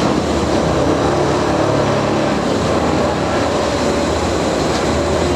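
Multiple tie tamper, a rail track-maintenance machine, with its diesel engine running steadily.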